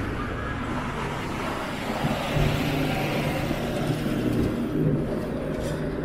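City street traffic: cars and other vehicles passing, a steady low engine and tyre rumble.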